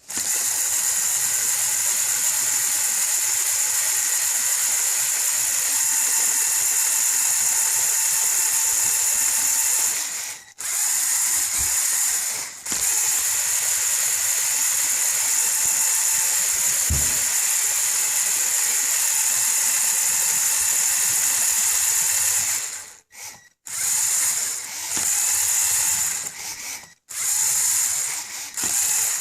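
LEGO Technic RC car's electric motor running with a steady high-pitched whine, cutting out briefly twice near the middle, then starting and stopping in short bursts over the last several seconds.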